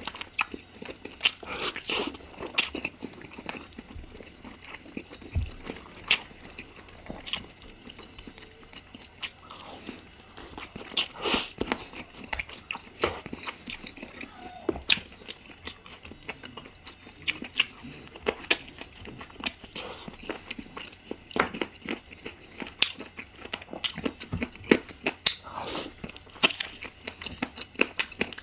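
Close-miked eating sounds: biting and chewing chicken curry, with many irregular short, wet crunchy clicks.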